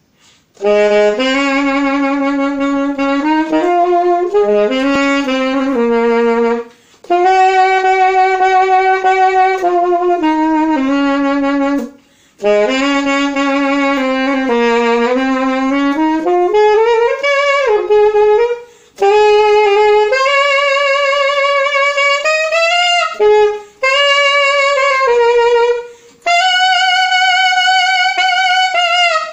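Solo saxophone playing a melody in several phrases, each ended by a short pause for breath, with vibrato on some of the held notes.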